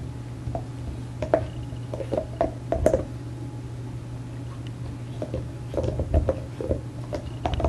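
German Shepherd gnawing on a bone, teeth scraping and crunching in irregular short clicks, several in quick clusters.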